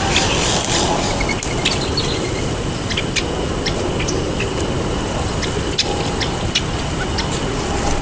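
Outdoor ambience: a steady low rumble with scattered short, high ticks or chirps, a few each second.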